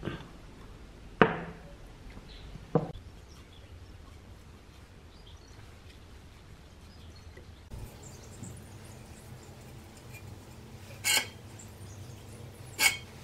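Two sharp knocks of hard objects being set down or handled, each with a short ring, in the first few seconds; near the end, two short scratchy strokes of a paintbrush on the metal loudspeaker frame.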